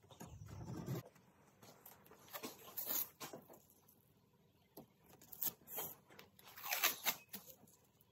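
Masking tape being pulled off its roll and pressed down along an edge, in several short tearing pulls, the loudest near the end.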